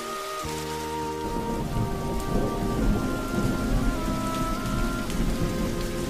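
Steady rain, joined about a second in by a long roll of thunder rumbling low, over soft music with slowly changing held notes.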